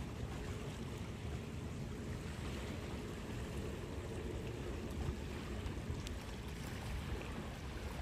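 Small sea waves lapping steadily, with a low, even rumble underneath.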